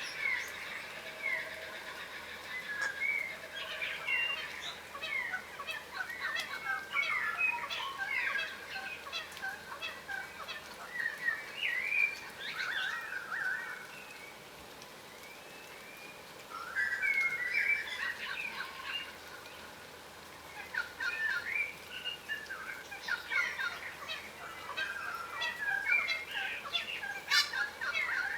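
A flock of yellow rosellas, the yellow form of the crimson rosella, chattering and whistling: many short chirps and whistles overlapping one another, going briefly quieter twice around the middle.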